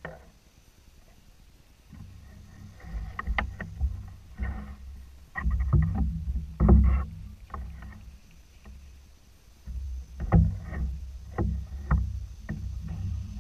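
Paddle and water sounds around a skin-on-frame canoe: irregular drips, light splashes and knocks over a low rumble, starting about two seconds in after a quiet opening.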